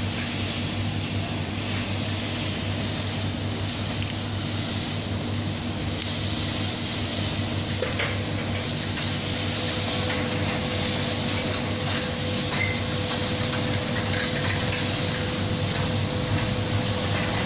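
DEA electric gate operator motor running steadily as it drives the gate, a low hum with a steady higher tone that joins about eight seconds in.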